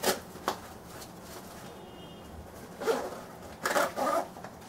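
Nylon Cordura medical pouch being handled and opened: brief rustles and scrapes of stiff fabric and its fasteners, two short ones near the start and a cluster about three to four seconds in.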